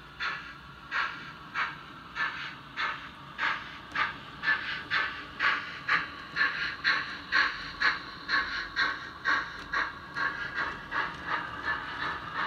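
Model steam locomotive's DCC sound decoder chuffing at about two beats a second, the beat picking up slightly over the first few seconds.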